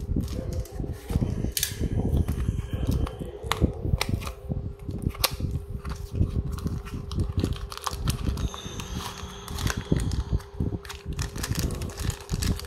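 Hands unboxing a small cardboard toy-car box: clear tape peeled off, the box opened and a die-cast car in a plastic bag pulled out, with crinkling, rustling and many sharp clicks and taps. A steady low hum runs underneath.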